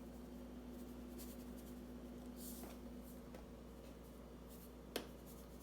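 Faint rustling and scratching of a spice shaker as onion powder is sprinkled onto steak, with one sharp click about five seconds in, over a faint steady hum.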